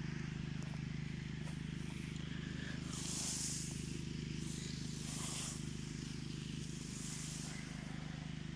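An engine running steadily, a low even hum, with several brief rustles of cut grass being brushed through.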